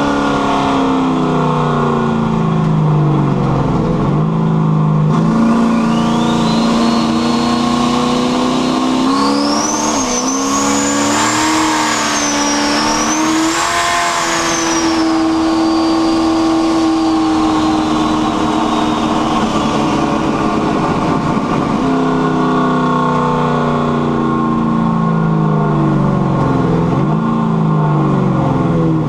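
Carbureted car engine with a rear-mounted turbo, revving up and dropping back through shifts under boost. A high turbo whistle rises about five seconds in, peaks midway and fades away. The engine pulls to high revs without misfiring, though the owner says the carburettor still needs leaning out.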